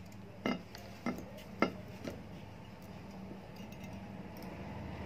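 Metal clinks as the steel pressure plate of an electric iron is handled and seated onto the iron's soleplate over the heating element: four sharp knocks in the first two seconds.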